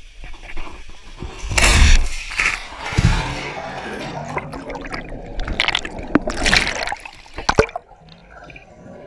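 A person plunging into a swimming pool: a loud splash about two seconds in, then bubbling and churning water heard from under the surface, with irregular sloshes that die down near the end.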